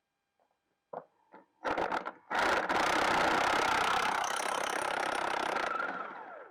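Impact wrench working on tractor wheel hardware: a few short bursts, then a steady hammering run of about four seconds that winds down with a falling whine at the end.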